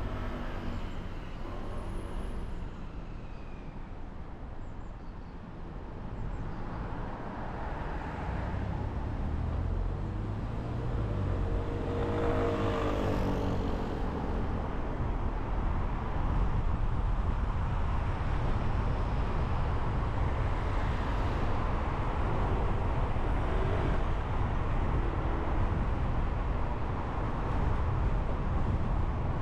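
Car driving in city traffic: a low engine hum while stopped at first, then road and tyre noise that grows louder from about six seconds in as the car pulls away and cruises. Another vehicle's engine passes close by, rising and falling in pitch, about twelve seconds in.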